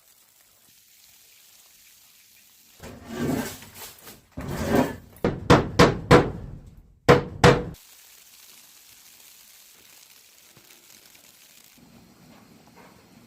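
A scraping, rustling sound, then a run of about six sharp knocks and thuds in quick succession, over about five seconds in the first half.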